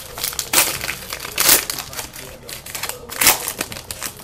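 Plastic card-pack wrapper crinkling and being crumpled in the hands, in a few loud bursts with lighter crackling between them.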